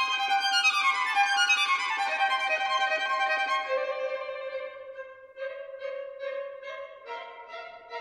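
Violin music: a falling run of notes, then a long low note held under short repeated notes.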